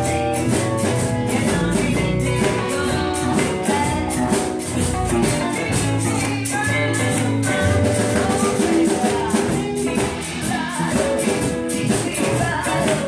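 Live blues band playing, with guitars, bass and drums, and a woman singing. Quick, high percussion hits keep a steady beat, about four a second.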